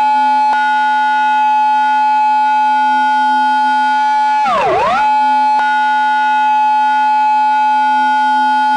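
Japanese police car siren in its intersection-entry pattern. It holds a steady high tone, then swoops quickly down and back up about halfway through.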